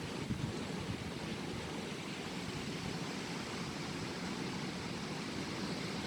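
Strong wind blowing and buffeting the microphone: a steady rushing noise with a gusty low rumble and a few louder gusts at the start.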